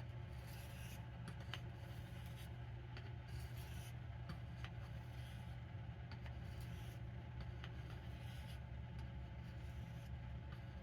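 Knife blade stroked lightly back and forth across a translucent Arkansas sharpening stone: faint, repeated scraping strokes about once a second with small ticks, over a steady low hum.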